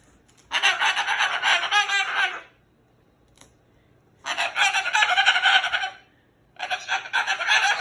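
Pet parrot squawking loudly in three harsh, rapidly stuttering bursts of about two seconds each, with short quiet pauses between them.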